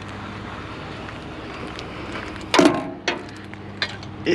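A steady low engine hum, with a loud clattering knock of handled objects about two and a half seconds in and a few smaller knocks after it.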